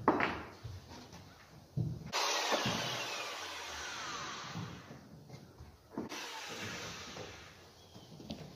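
Power drill running against the wall framing in two runs: one of about four seconds that starts abruptly about two seconds in, then a shorter one that fades out. A sharp knock comes at the very start.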